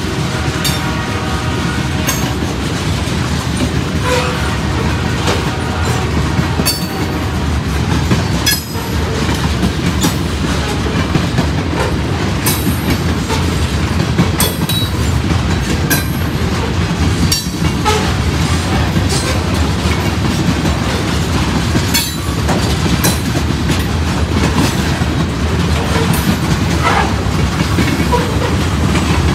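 Covered hopper cars of a freight train rolling past at close range: a steady rumble of steel wheels on the rail, with repeated clicks as the wheels cross rail joints and a few brief high squeaks.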